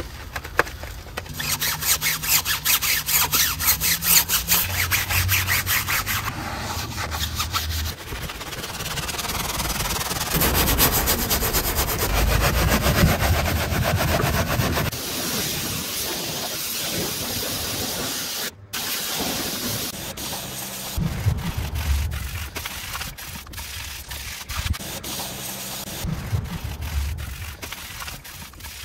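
Detailing brushes scrubbing a soapy alloy wheel, rapid back-and-forth rubbing strokes in long spells, with a brief break about two-thirds of the way through.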